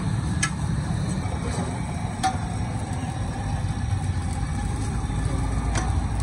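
Steady low roar of a gas burner under a street-stall wok, with three sharp metal clinks of a ladle against the pans.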